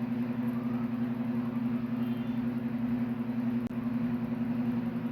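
A steady mechanical hum with one dominant low pitch, like a running appliance or fan. It drops out for an instant about two-thirds of the way through.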